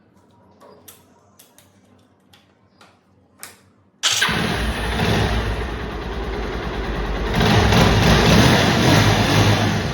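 A few light clicks, then about four seconds in a Bajaj Pulsar 220's single-cylinder engine starts suddenly and runs, rising for a couple of seconds before easing off near the end. It runs without the ticking timing-chain noise, its chain tensioner adjuster now lengthened with a welded-on bush.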